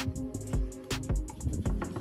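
Background music with held tones and a steady drum beat.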